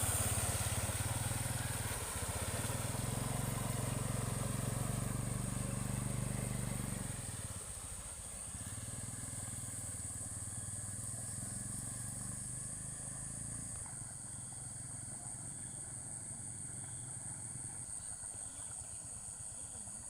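A motorcycle engine running, loudest at first and dropping away sharply about seven seconds in, then running on more faintly. A steady high hiss runs underneath.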